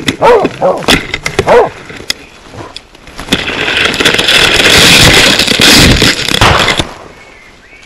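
A hunting dog barks a few times, followed by about four seconds of loud rustling and scraping as branches and brush rub past the microphone while the hunter pushes through thick undergrowth.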